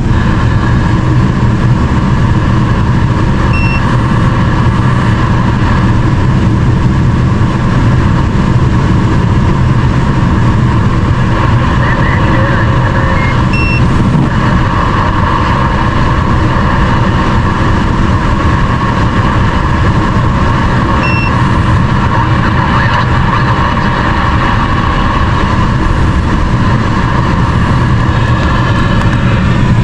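Steady vehicle noise heard from inside a truck, a low engine hum with road or rain noise over it, and three faint short beeps at about 4, 14 and 21 seconds in.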